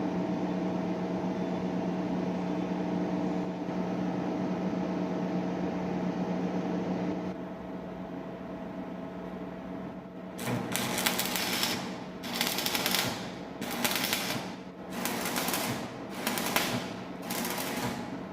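Steady hum with hiss for the first seven seconds or so, quieter until about ten seconds in. Then the arc of a 6013 stick electrode crackles in surges about every one and a half seconds.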